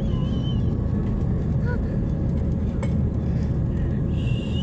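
Steady low rumble of passenger-jet cabin noise, the engines and rushing air heard from a seat inside the cabin.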